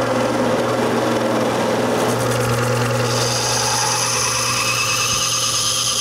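Old cast-iron bench grinder's motor running steadily while a bar of green abrasive compound is pressed against its spinning cotton buffing wheel, charging it. About halfway through, a high whine joins the steady hum.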